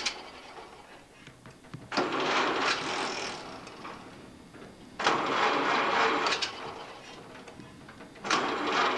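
1931 Ford Model A's starter motor cranking its four-cylinder engine in three short bursts of about a second and a half, a few seconds apart, without the engine catching.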